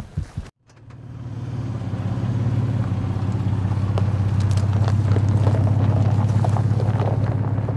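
A few footsteps on frozen ground. After a brief break, a vehicle engine comes in with a steady low hum that holds and fades out near the end.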